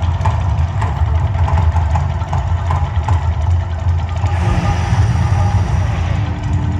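Deep, steady rumble from the Mirage volcano show's eruption effects, with a fine crackle over it.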